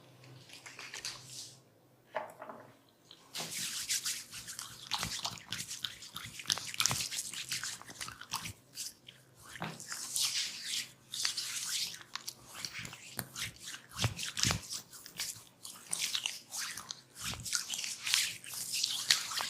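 Close-up massage sounds: hands rubbing and kneading skin and hair, a dense, irregular crackling rub of palms and fingers, with a few soft low thumps around the middle.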